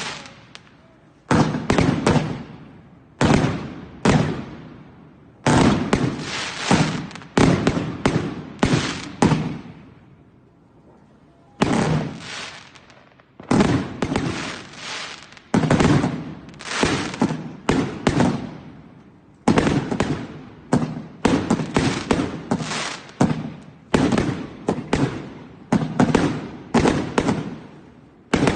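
New Year's fireworks going off: sharp bangs in quick clusters, each fading away, with a short lull about ten seconds in.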